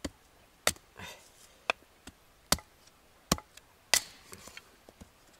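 Firewood being chopped: a series of sharp wooden knocks, roughly one a second.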